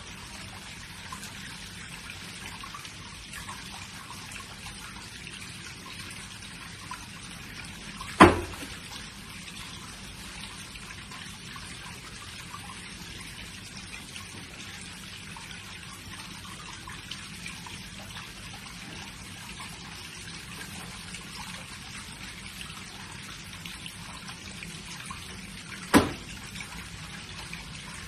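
Steady trickle of running water, broken twice by a sharp thud of a bare foot stamping on a wooden floor, once about eight seconds in and once near the end.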